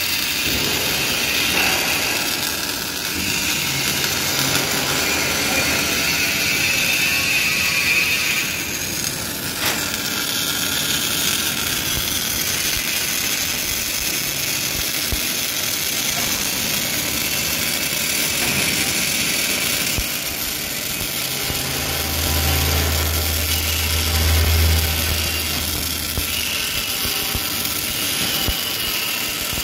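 Welding arc of a CLOOS CAL 120/30 linear seam welder burning along the seam: a steady, crackling hiss. A low hum joins in for a few seconds past the middle.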